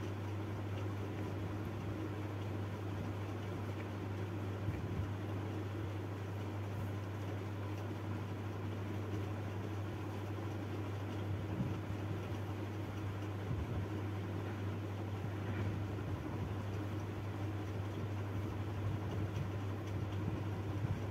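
Steady low mechanical hum with a faint even hiss, unchanging throughout, with a few faint soft taps.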